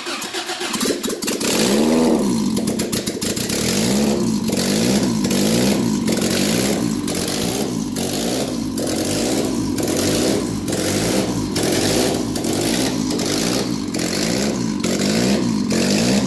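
Honda GSR four-cylinder engine in a sand rail running on its first start after being wired up. It has just fired, revs up and back once about two seconds in, then runs with a regular surge about twice a second until it is shut off.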